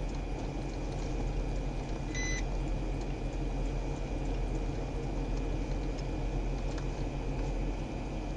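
Steady low rumble and hiss of idling vehicles, with a thin steady whine above it. One short electronic beep sounds about two seconds in.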